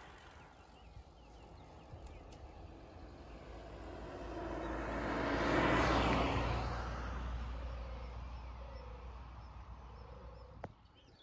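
A small car driving past close by. Its engine and tyre noise swells to a peak about halfway through and then slowly fades, over faint wind and road noise.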